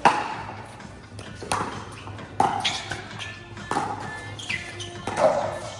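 Pickleball rally: paddles striking the plastic ball with sharp hollow pops about once a second, six hits in all.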